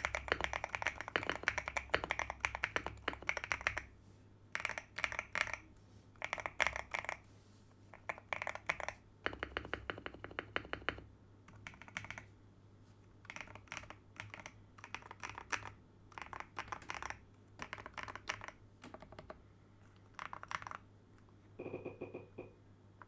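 Typing on a mechanical keyboard fitted with CIY Sakura switches: a fast stream of key clicks for the first few seconds, then short bursts of keystrokes separated by pauses.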